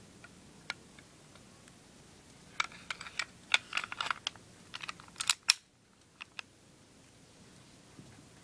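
Metal parts of a WE Tech M1911A1 gas blowback airsoft pistol clicking and clacking as its slide is fitted back onto the frame: a quick run of sharp clicks over about three seconds, then two light clicks.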